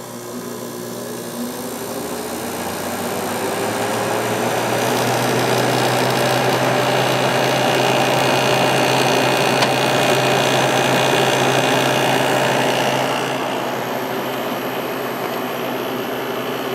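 Kenmore (Whirlpool) 5,000 BTU air conditioner starting up with its Matsushita compressor and the fan on low: a steady hum with a tone that rises and grows louder over the first few seconds as it comes up to speed, then runs steadily, easing a little about thirteen seconds in.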